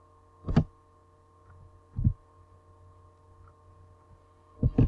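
Computer keyboard keystrokes heard as a few dull clicks: one about half a second in, one at two seconds and a couple near the end. A steady electrical hum runs underneath.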